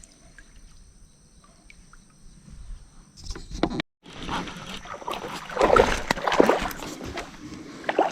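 Sounds on a fishing kayak: quiet with a few faint ticks at first, then, after a cut, irregular sloshing and knocking of water and gear against the kayak hull, loudest about six seconds in.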